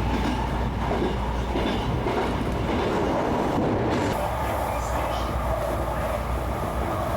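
Hankyu electric commuter train running, heard from inside the carriage: a steady rumble of wheels on rail that changes about four seconds in.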